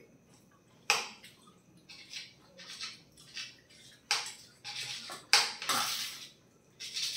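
Spoons scraping and clinking against plates as curry-soaked parotta is cut up, with a sharp clink about a second in and further clinks and scrapes after it.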